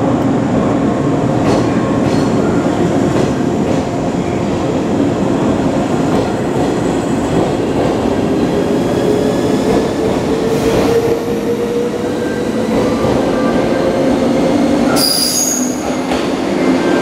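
JR West 381 series 'Yakumo' limited express electric train running past along the platform. A steady rumble and the clicks of wheels over rail joints are joined by a motor whine that rises in pitch as the train picks up speed. A short, high wheel squeal comes about fifteen seconds in.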